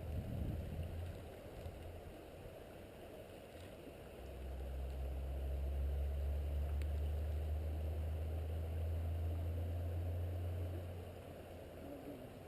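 Flowing stream water running steadily, with a low steady rumble rising about four seconds in and fading shortly before the end.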